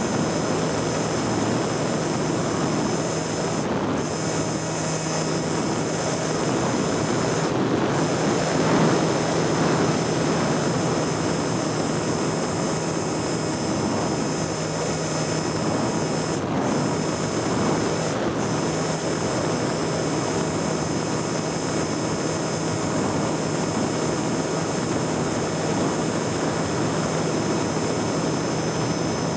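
Small propeller aircraft's engine droning steadily in flight, heard from on board, under a broad rushing noise of air.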